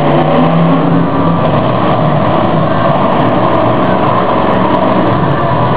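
Monster truck's supercharged V8 engine running loud and revving as the truck drives and turns.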